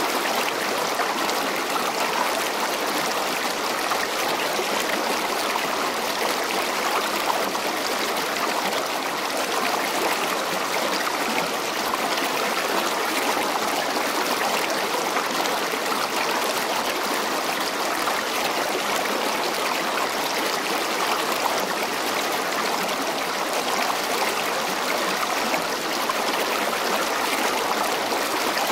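Steady, even rushing noise that does not change, with no distinct calls, hoofbeats or knocks standing out.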